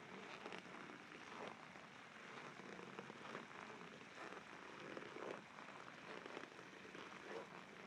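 Footsteps crunching in dry, deep-frozen snow, faint, at a steady walking pace of about one step a second.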